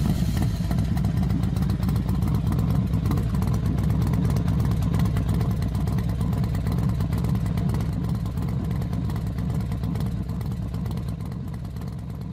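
Motorcycle engine running steadily at an even pitch after starting, with a fast, dense firing pulse. It fades gradually over the last few seconds.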